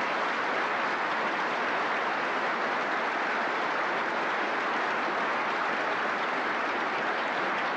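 Audience applauding steadily, a dense, even clapping from many hands.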